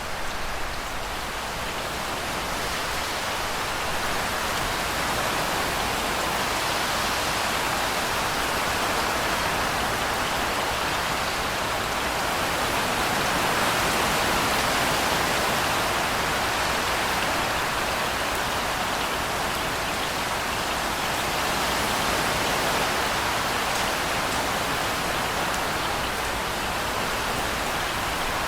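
Steady heavy rain falling, an even hiss of drops that swells slightly about halfway through.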